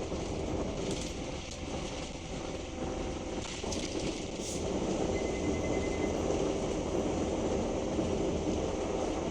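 Interior sound of a Scania K310UB bus at motorway speed: its 9.3-litre five-cylinder DC9 diesel running under road noise, with the unexplained whooshing that this bus makes only when accelerating. It grows louder about halfway through.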